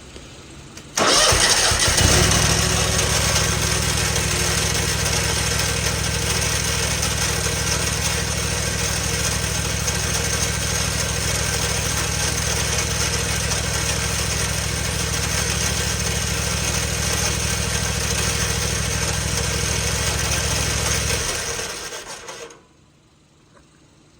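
A small engine starts suddenly about a second in and runs steadily for about twenty seconds, a low hum under a strong high hiss, then shuts off and winds down near the end. The owner is asking what causes an unusual noise it makes.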